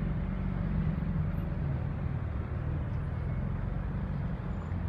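Steady low rumble of car engines and street traffic.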